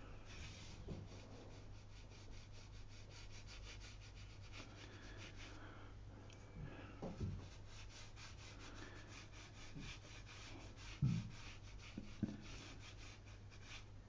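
Paintbrush working on watercolour paper: a rapid, even run of faint scratchy strokes, several a second, with a short pause partway through and a few soft low thumps, the loudest about eleven seconds in. A steady low hum lies under it.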